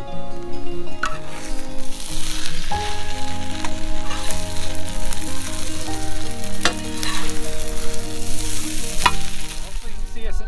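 Food frying and sizzling on a fire disc cooker, with a few sharp clacks of a utensil stirring it. Soft background music plays underneath.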